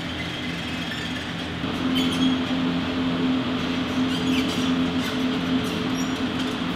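Steady mechanical hum and rumble that gets louder about two seconds in, with faint high squeaks and clicks on top.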